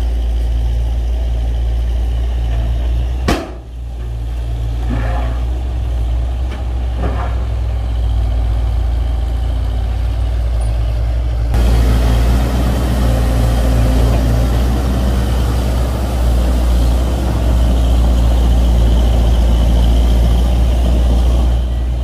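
Heavy diesel earthmoving machinery running steadily with a low rumble: a dump truck tipping its load, with a crawler bulldozer working close by. There is one sharp knock a little over three seconds in. About halfway through the sound changes abruptly and gets a little louder.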